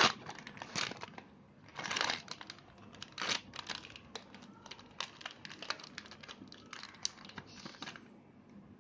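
Plastic ice-cream wrapper crinkling and tearing as hands peel it open, in irregular crackly bursts that are loudest in the first few seconds.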